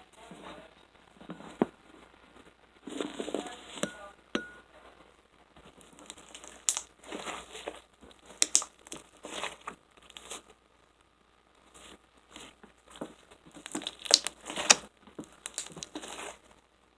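Homemade slime being squished and stretched by hand: irregular crackling with a few sharp pops, loudest about two-thirds of the way through.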